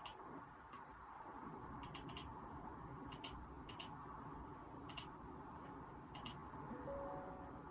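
Computer keyboard typing in short bursts of a few keystrokes at a time, recorded through a phone microphone over a steady background hiss.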